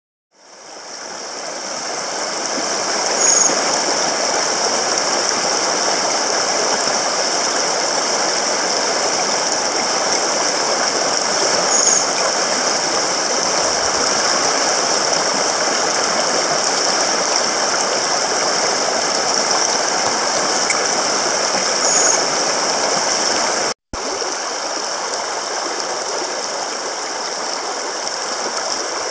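Shallow mountain stream rushing over a rocky riffle: a steady, even rush of water that fades in over the first couple of seconds and drops out for an instant about 24 seconds in.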